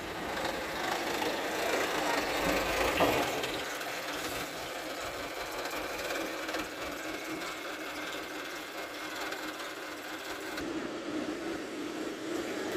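Diesel engine of a Mitsubishi Fuso light dump truck running as the truck drives off past the camera, a little louder two to three seconds in.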